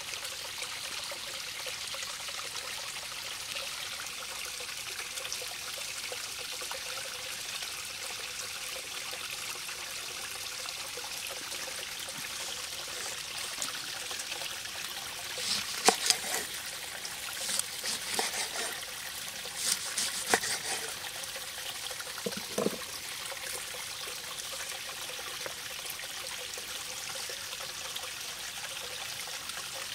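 A stream trickling steadily. About halfway through, a few seconds of sharp clicks and scrapes as the raw fish is handled and cut with a knife on a wooden board.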